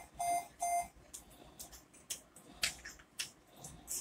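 A quick run of three short, same-pitched electronic beeps from a bedside medical device at the start, followed by faint scattered rustles.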